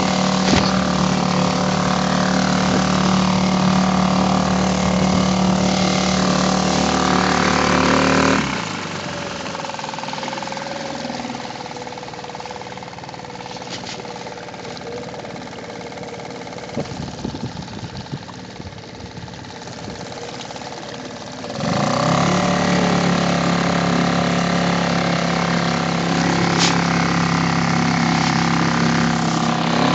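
Suzuki 2.5 hp outboard motor running under way, throttled back to a quieter idle about eight seconds in, then opened up again with a rising sweep in pitch about twenty-one seconds in.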